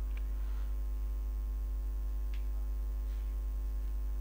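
Steady electrical mains hum with a stack of steady overtones, and two faint clicks, one just after the start and one about halfway.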